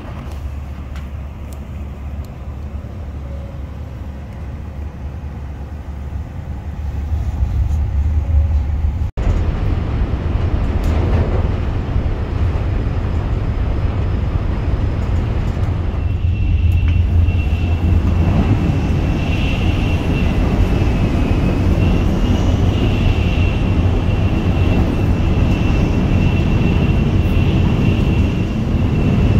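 Steady low rumble of a moving vehicle, growing louder about seven seconds in, with a thin steady high whine joining about halfway through.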